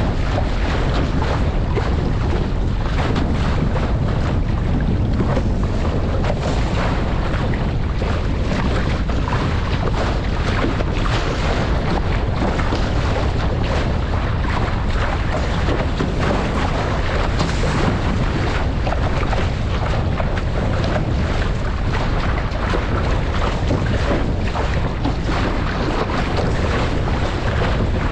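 Wind buffeting the microphone over the steady rush and slap of water along the hull of an RS600 dinghy sailing fast upwind.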